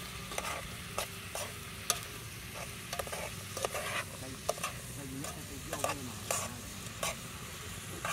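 Chopped eel pieces being mixed by hand in a metal pot over a wood fire: irregular wet slaps and clicks, about two a second, over a steady hiss.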